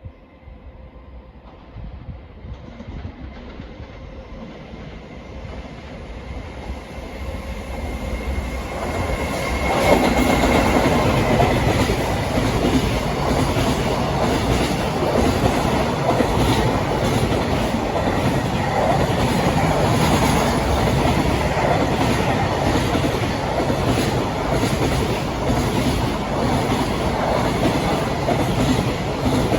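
A freight train approaching, growing louder over about ten seconds, then passing close by with a steady rumble and the clickety-clack of its wagons' wheels over the rail joints.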